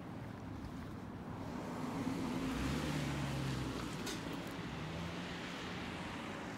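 A motor vehicle passing unseen: its engine hum and tyre noise swell over a couple of seconds and then fade, with a fainter engine hum a little later, over steady outdoor street noise.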